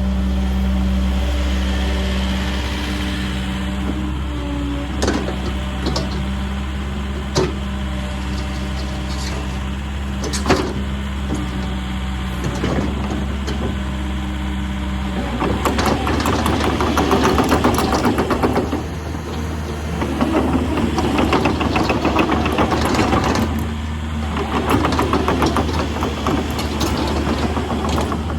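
Cat 308 mini excavator's diesel engine running at a steady idle, with a few sharp knocks. About halfway through it turns louder and rougher, with a dense rattle.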